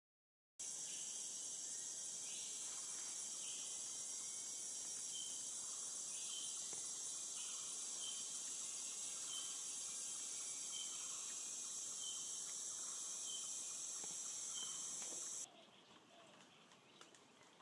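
Insect chorus: a loud, steady, high-pitched shrill drone that starts abruptly about half a second in. A short, high note repeats over it roughly once a second, and the whole sound cuts off suddenly near the end, leaving a much quieter background.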